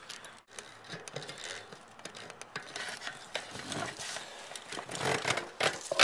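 Handling noise of a mechanic fetching a tool: irregular scrapes, clicks and rustling of metal tools and parts being moved, louder toward the end.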